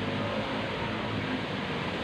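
Heavy rain pouring down in strong wind, a steady rushing hiss with no breaks.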